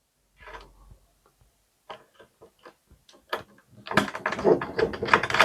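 Screwdriver driving a screw into a desktop PC case: a few scattered clicks, then a fast run of sharp clicks from about four seconds in.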